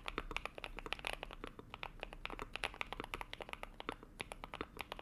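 Mechanical keyboard being typed on quickly: a dense, uneven run of short key clicks.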